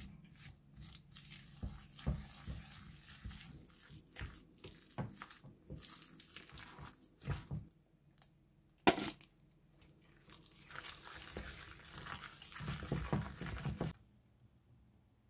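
Wooden chopsticks stirring and mashing a potato, egg and mayonnaise salad in a glass bowl: irregular soft squishing strokes with occasional clicks, and one louder knock about nine seconds in. The sound stops suddenly shortly before the end.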